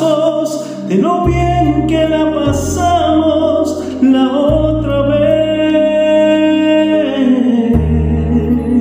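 A man singing a slow Spanish-language bolero over a backing track with bass, holding one long note in the middle.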